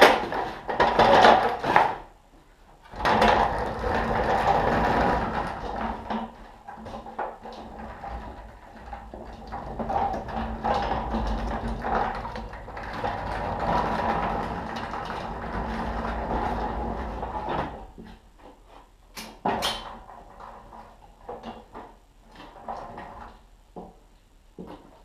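A hand pallet truck rattling and clanking with a low rumble as it is wheeled across a concrete floor. A short loud burst comes first, then a steadier rattle for about fifteen seconds, then only a few faint knocks.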